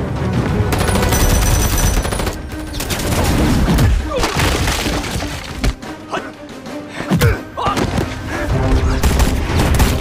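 Action-film soundtrack: a dramatic music score with bursts of gunfire and impacts. It thins out briefly past the middle, then comes back with a sharp hit.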